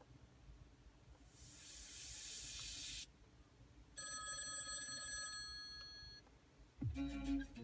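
A film soundtrack played through a car's head-unit speakers: a hissing swell lasting about two seconds, then a telephone ringing for about two seconds. Plucked-string music begins near the end.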